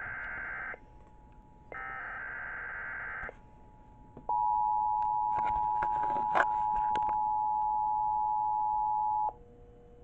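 Emergency Alert System tones of a required monthly test. A raspy digital SAME header data burst ends under a second in and another sounds about a second later. Then the steady two-tone attention signal sounds for about five seconds and cuts off suddenly, with a few clicks over it.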